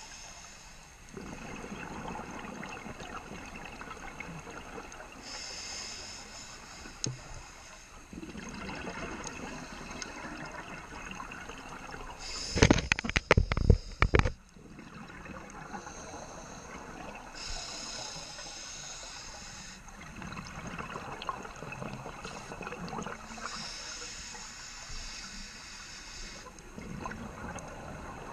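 Scuba regulator breathing underwater, about four slow breaths. Each is a hissing inhale followed by a long bubbling exhale. About halfway through comes a loud burst of knocks and rushing noise, lasting under two seconds.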